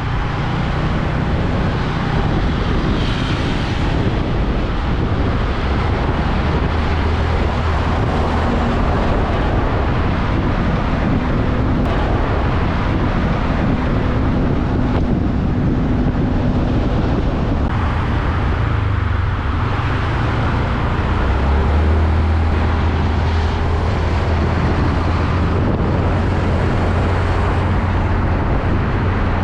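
Heavy truck traffic: diesel engines of passing container trucks running steadily, with a low engine drone that grows stronger a little past the middle.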